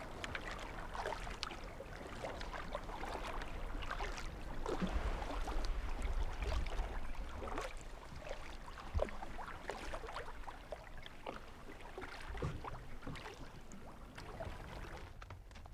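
Kayak paddle dipping and splashing in calm sea water, with small irregular lapping and trickling sounds of water around the boat.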